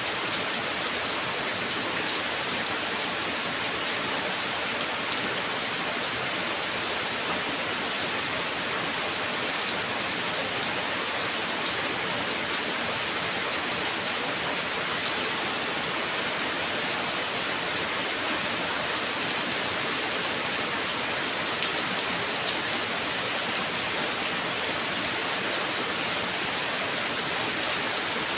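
Heavy rain falling steadily, a dense even hiss with fine patter of drops.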